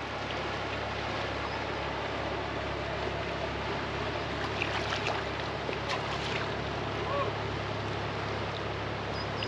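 Steady low drone of a motor cruiser's engine as it passes on the river, over an even hiss of wind and water. There are a few faint clicks about five and six seconds in.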